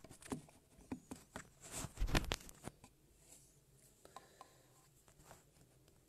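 Handling noise from a phone being picked up and set up to film: a run of knocks, rubs and clicks against the phone, loudest about two seconds in, then only a few faint clicks.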